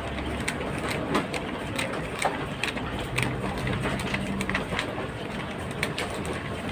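A stack of paper sheets being riffled and flipped through by hand: a string of crisp, irregular page flicks, several a second.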